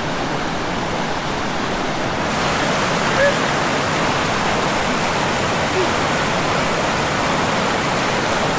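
Steady rushing of falling water from the Seven Wells waterfall, growing brighter and hissier about two seconds in.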